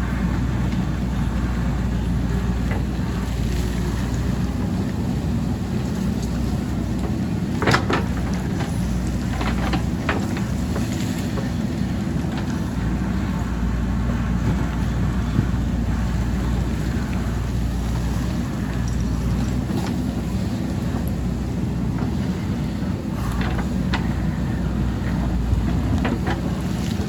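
JCB backhoe loader's diesel engine running steadily at working revs, with a few sharp knocks and clanks at scattered moments.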